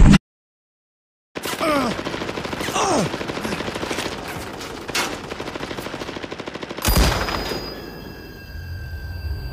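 Rapid automatic gunfire sound effect, starting after a second of silence, with a few falling whistling tones early on. About seven seconds in, a single loud bang is followed by a high ringing.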